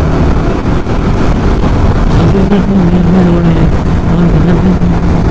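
Motorcycle running at a steady cruising speed inside a road tunnel, a steady engine hum over wind and road noise; the engine note comes out clearer and holds about two seconds in.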